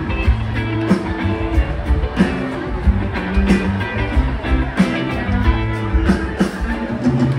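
Rock band playing live, an instrumental stretch with guitar over bass and a steady drum beat.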